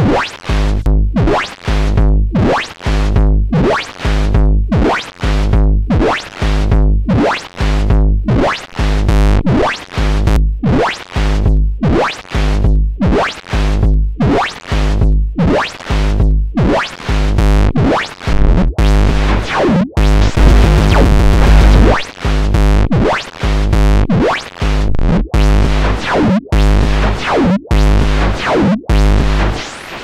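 Synthesized white noise from a VCV Rack modular patch, filtered through the Parametra EQ, pulsing at about two hits a second. Its tone shifts as an LFO sweeps the EQ's frequency and gain, and a deep low thud sits under each pulse. About twenty seconds in, the noise holds steady for a couple of seconds before the pulses resume.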